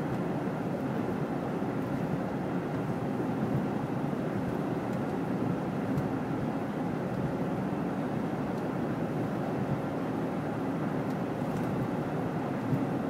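Steady road and engine noise of a car driving through snow, heard from inside the cabin, with a few faint ticks.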